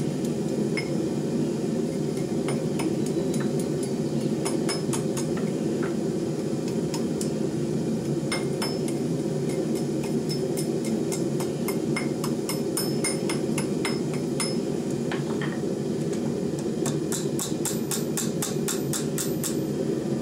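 Hand hammer striking red-hot 1084 carbon steel bent over a round bar on an anvil, forming a curved knife blade: sharp metallic clinks, scattered at first and coming in a quick run near the end. A steady low rumble runs underneath.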